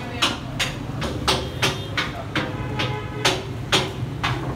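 Sharp, irregularly spaced knocks, about two a second, from a cooking utensil striking a hard cooking surface, over a steady low hum.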